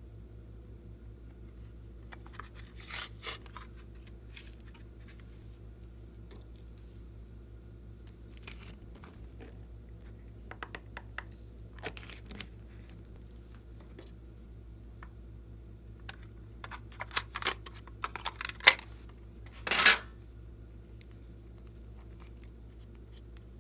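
Close-up handling noises from slime making: scattered small clicks and crinkles, growing busier later on, then one brief, louder rasp, like a snip or tear, near the end. A steady low hum runs underneath.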